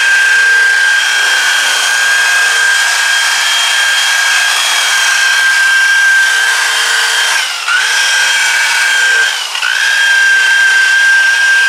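Electric variable-speed rotary buffer with a wool pad spinning at speed against a car's paint, a steady high whine with the rub of the pad on the panel. Twice in the second half the whine dips briefly in pitch and climbs back.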